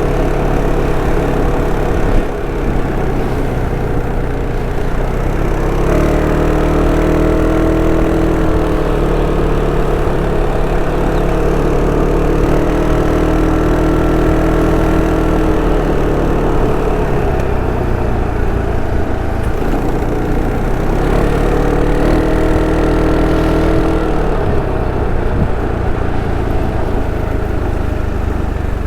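Sym Cruisym 300 scooter's single-cylinder engine and stock exhaust running under way, a steady drone whose pitch picks up about six seconds in and again past twenty seconds, easing back in between as the throttle changes.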